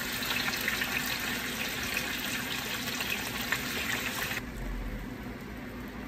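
Chicken pieces frying in a sauté pan: a steady sizzle with fine crackles, which cuts off suddenly about four seconds in, leaving only a faint hiss.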